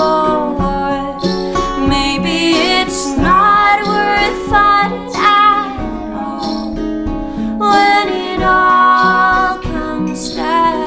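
Acoustic guitar strummed under voices singing a slow melody without clear words.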